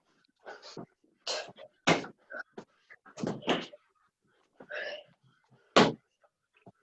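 A group doing burpees: irregular thuds of hands and feet hitting the floor, one or two a second.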